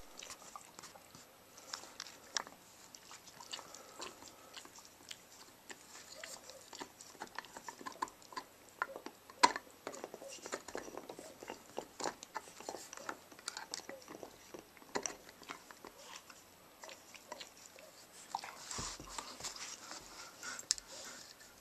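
Dogs gnawing on a chew bone: irregular clicks and crunches of teeth on the bone, with one sharp, loud click about halfway through. The gnawing grows denser and noisier near the end.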